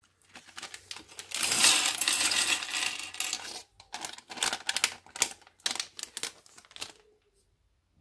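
Plastic LEGO polybag rustling as it is opened, then small LEGO pieces tipped out onto a hard table: a dense clatter for about two seconds, followed by scattered single clicks as the last pieces are shaken out, stopping about seven seconds in.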